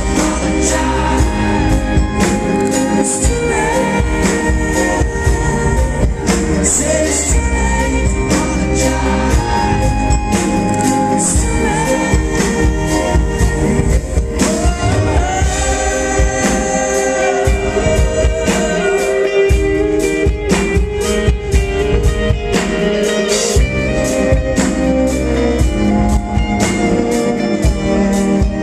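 Live pop-rock band playing loud: a lead voice singing over bowed cello, keyboard and drum kit.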